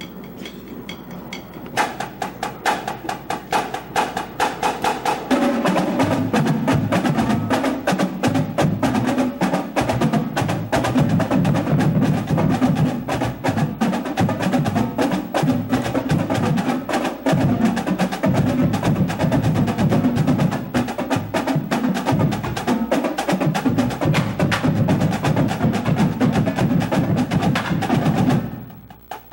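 Drumline of Dynasty marching snares and quad tenors playing a double-beat exercise in unison: fast, even diddle strokes and rolls. The sound grows fuller with more low drum tone about five seconds in, and the line stops together just before the end.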